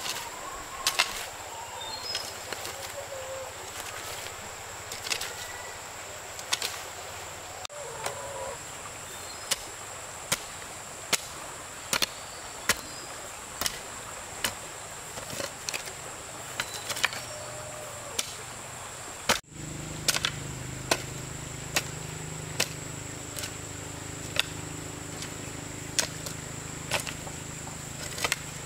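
Sharp knocks of a tool striking wood, about one a second and unevenly spaced, over a steady high insect drone and a few bird chirps. About two-thirds through the background changes abruptly to a steady low hum.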